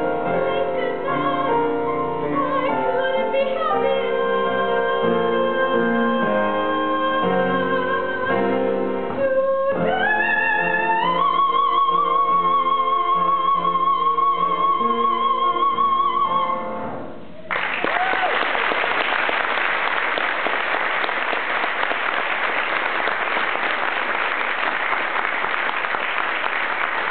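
A teenage girl's solo singing voice with instrumental accompaniment, finishing a show tune by rising to a long held high note with vibrato. About seventeen seconds in the song ends and an audience applauds steadily.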